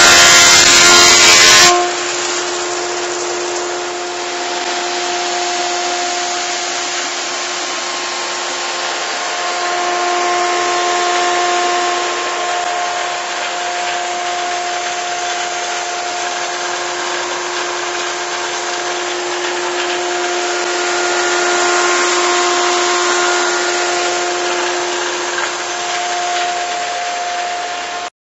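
Single-sided wood thicknesser running: a steady machine noise with a constant hum, louder for the first couple of seconds. It cuts off abruptly near the end.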